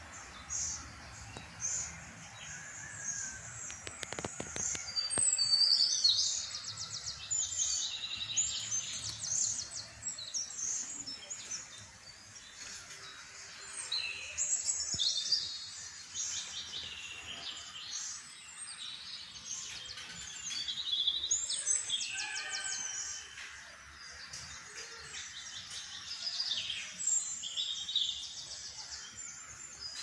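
Songbirds chirping and singing: a steady mix of short high calls and quick trills, with a brief run of falling notes a little past the middle.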